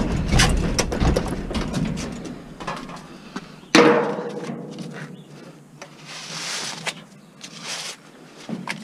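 Metal rattling and knocking as an old electric stove is stripped for scrap, with one sharp metal clank and a short ring about four seconds in. Near the end, short bursts of scraping as a thick insulated wire is pulled out of the stove body.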